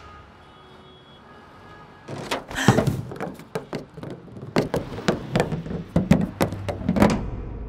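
A quiet start, then from about two seconds in an irregular run of sharp knocks and thuds, several a second, with a heavy thud near the end.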